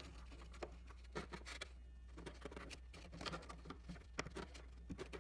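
Faint, scattered light taps, clicks and rubs of hard composite model-aircraft parts being handled and pushed together as a part is test-fitted to the fuselage, over a steady low hum.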